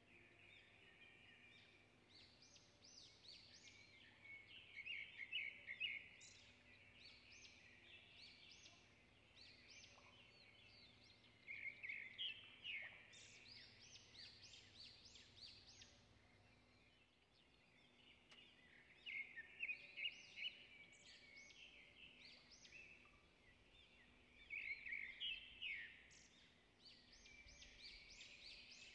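Faint birdsong: bursts of quick, high chirps and trills that come in bouts every few seconds.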